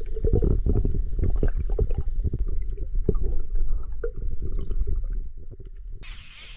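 Water heard through a submerged microphone: a muffled low rumble and gurgle with many soft knocks. It stops about six seconds in, giving way to a faint hiss.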